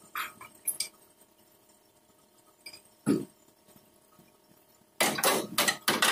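Metal clanks and knocks from hand work on a pickup truck's stripped front end: a few light clinks, one short knock about three seconds in, then a quick run of sharp metallic strikes near the end.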